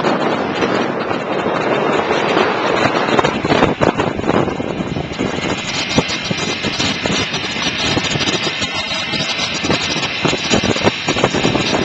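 Motor scooter running while towing a trailer across dry lakebed ground, heard from the trailer, with irregular knocks and rattles from the ride over bumps.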